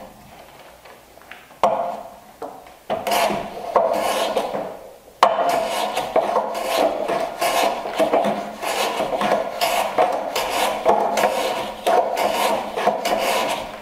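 Hand plane shaving the end grain of a small board clamped in a miter jack, in repeated scraping strokes. After a few separate strokes and a sharp click about five seconds in, the strokes come close together.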